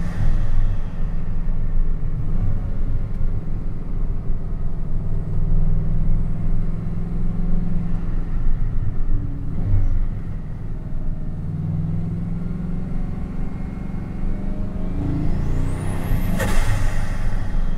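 Bugatti Chiron Sport's quad-turbo W16 engine pulling at a steady low drone, heard from inside the cabin. Near the end it revs up, a high turbo whistle rises and falls, and it ends in a sharp burst of noise.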